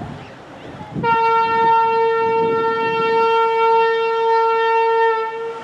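The car ferry Bangor's horn: one long, steady blast of about four seconds, starting about a second in.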